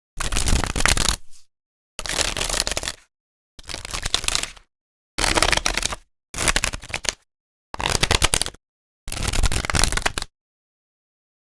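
A deck of playing cards being riffle shuffled, seven times: each shuffle is a rapid flutter of cards lasting about a second, with a short silence between them.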